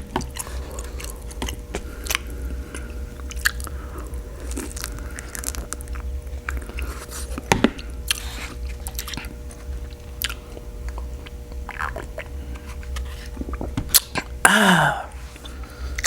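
Close-up chewing of a birria taco soaked in consomé: wet mouth clicks and smacks throughout. Near the end comes one short vocal sound that falls in pitch.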